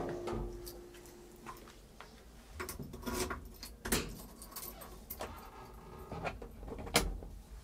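Scattered clicks, knocks and light rattles of controls being handled in the cab of a Piaggio Ape as its lights are switched on. The sharpest click comes about seven seconds in.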